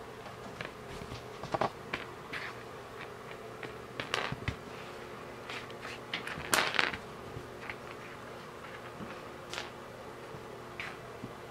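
Kittens pawing at and knocking game pieces across a cardboard game board: scattered light taps, clicks and rustles, the loudest about one and a half, four and six and a half seconds in, over a faint steady hum.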